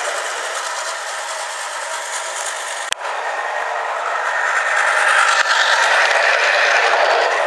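Battery-operated toy bullet train running along its track with a steady mechanical rattle from its small motor and wheels. There is a sharp click about three seconds in, and the sound grows louder about four and a half seconds in.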